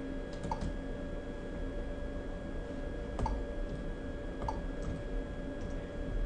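Sparse sharp clicks, about six in all, of buttons being pressed on an ultrasound machine's control panel. They sound over a steady electrical hum with thin high steady tones.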